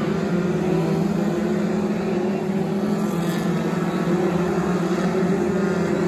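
BriSCA F2 stock cars racing around the oval, their engines making a steady, continuous drone as the pack laps.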